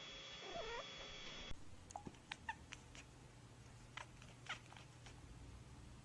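A cat gives one short, wavering meow, faint. Then, after a cut, come scattered light clicks and brief chirps over a low hum.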